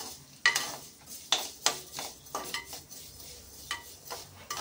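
Metal ladle scraping and clinking against a metal pressure-cooker pot while stirring dals and coriander seeds being roasted. The strokes are irregular, louder in the first two seconds and softer after.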